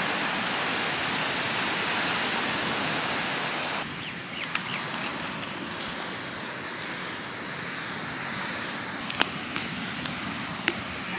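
Steady rushing noise of sea surf and wind for the first few seconds, then hands digging and scraping in dry sand around a sprouting coconut, with a few sharp clicks near the end.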